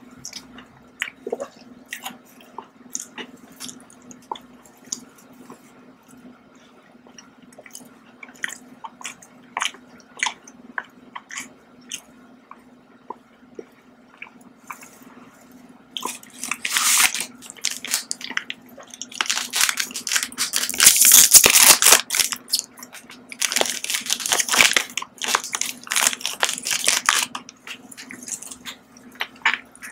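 Close-miked chewing and crunching of candy and biscuits, many small sharp crunches and mouth clicks. From about halfway, loud crinkling of a plastic snack wrapper being handled, in long rustling stretches.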